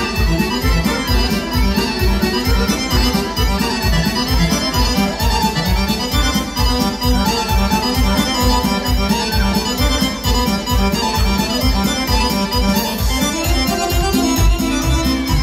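Loud Balkan folk dance music for a kolo line dance: accordion over a fast, steady beat.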